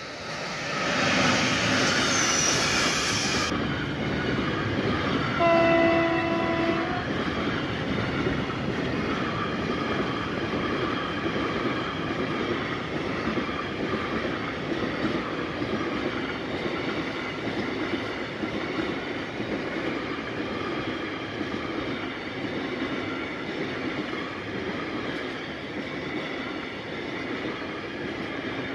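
An electric locomotive passes close by, hauling a freight train of tank wagons. About five seconds in, a horn sounds one held note for just over a second. Then the tank wagons roll past with a steady rumble and clatter of wheels on the rails, slowly easing off.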